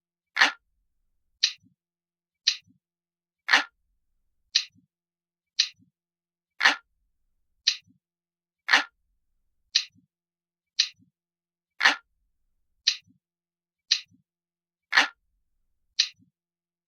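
Clock ticking steadily, about one tick a second, some ticks stronger than others, each followed by a faint low knock.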